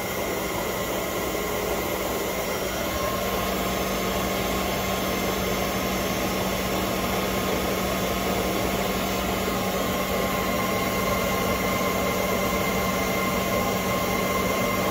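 Harrison Alpha 400 CNC lathe running with its spindle turning: a steady machine hum with a constant whine above it. A second, higher whine grows stronger about three seconds in.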